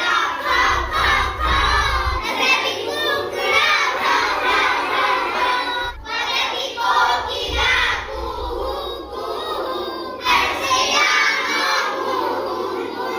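A group of children shouting and calling out together, many voices overlapping.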